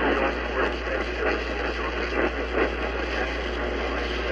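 Radio broadcast of an emergency alert with poor reception: static hiss and a steady low hum, with the reading voice broken up and muffled underneath.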